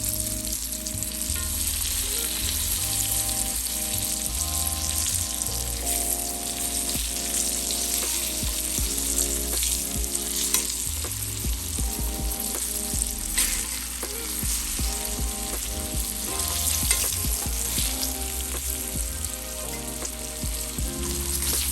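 Egg-and-flour-coated green tomato slices frying in hot oil in a pan: a steady sizzle with frequent small crackles and pops.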